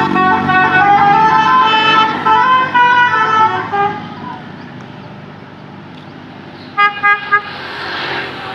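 Basuri multi-tone 'telolet' air horn on a bus playing a tune of stepped notes for about four seconds, then three short toots near the end. Under it is the noise of the bus engine, which rises toward the close.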